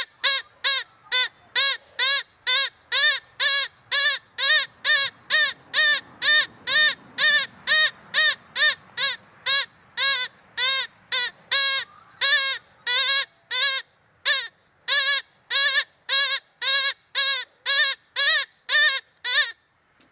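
Rabbit call played back as a run of identical short squealing notes, about two a second, with a short break about fourteen seconds in; it stops just before the end.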